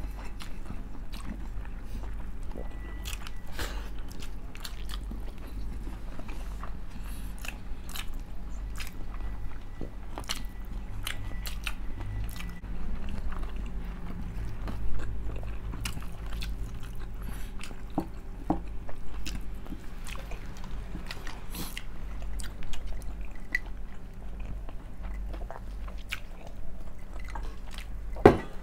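Close-mic eating: chewing and biting into crispy pata, the crisp skin of deep-fried pork knuckle crunching in many short snaps, with one sharp, loud crunch near the end.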